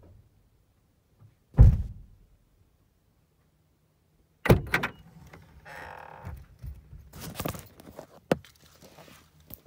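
A heavy thump, then after a quiet gap a sharp knock followed by a few seconds of rubbing, knocks and clatter from the recording phone being handled and picked up.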